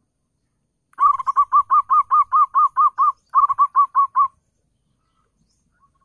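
Zebra dove cooing a rapid run of short, arching notes, about five or six a second, with a brief break about three seconds in; the phrase lasts a little over three seconds.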